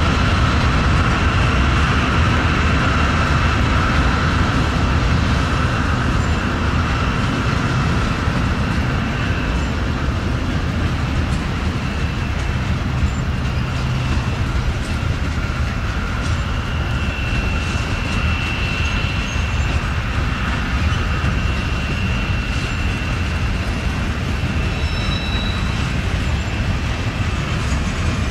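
Norfolk Southern manifest freight train passing, its diesel locomotives and freight cars making a steady low rumble as the wheels roll on the rails, with a thin steady whine above it.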